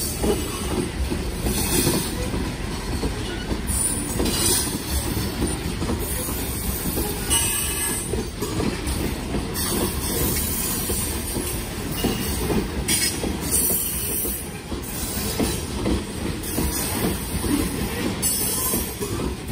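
Freight train of open-top gravel (ballast) cars rolling past: a steady low rumble of steel wheels on rail, with a brief high rushing noise from the wheels every second or two.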